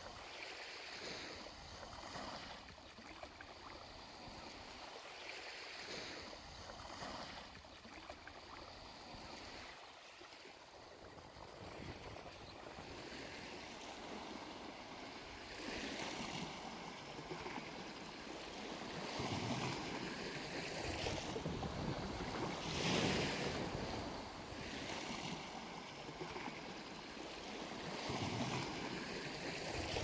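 Sea waves washing onto the shore in repeated surges, one every two to three seconds, louder in the second half.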